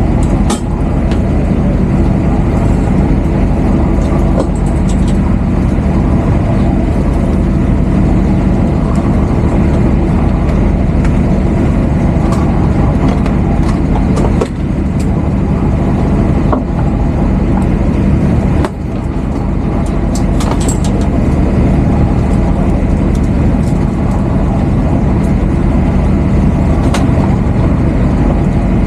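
A boat's engine running steadily at a constant pitch, with a few scattered clicks and knocks.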